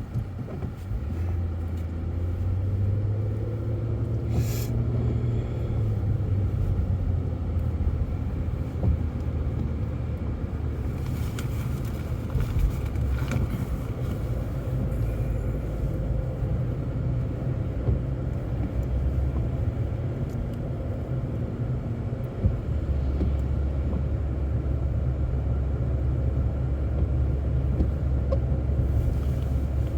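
Steady low rumble of a car's engine and tyres heard from inside the cabin while driving. The rumble shifts in pitch about a second in and again at about 22 seconds.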